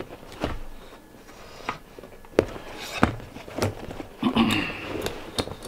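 Handling a pleated RV blind: irregular light clicks and taps from the blind's metal rail and rustling of the pleats while the slack is pulled out of the cord.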